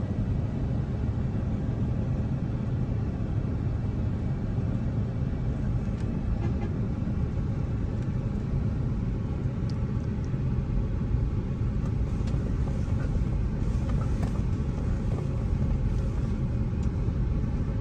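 Steady low rumble of a car driving on the road, engine and tyre noise heard from inside the moving car's cabin.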